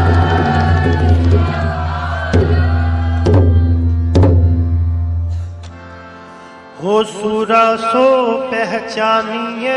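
Sikh kirtan music: a steady held accompaniment with tabla strokes, which drops away about six seconds in. About a second later a sustained sung line with a wavering pitch begins.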